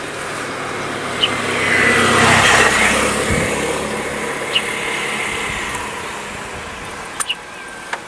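A motor vehicle driving past: engine and road noise that swell to their loudest about two and a half seconds in, then slowly fade, with a few small clicks.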